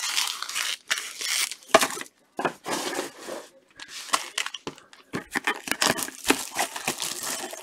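Cellophane shrink-wrap on sealed trading-card boxes crinkling and rustling in short, irregular bursts as the boxes are handled.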